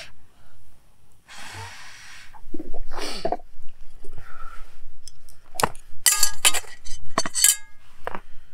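Camp cookware clinking: several sharp, hard clinks that ring briefly, clustered from about five and a half seconds in, after a few soft rushing noises earlier.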